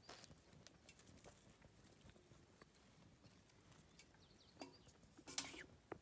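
Faint wood fire crackling in a Solo Stove: scattered small pops and snaps. A brief quiet voice-like sound comes about five seconds in, the loudest moment.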